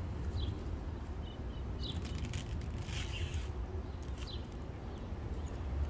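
Outdoor background: a steady low rumble with a few short, faint bird chirps scattered through it.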